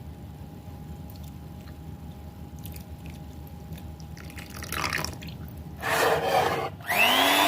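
Egg and milk going into a bowl of mashed banana, butter and sugar: a few faint clicks, then liquid splashing and pouring in louder spells near the end.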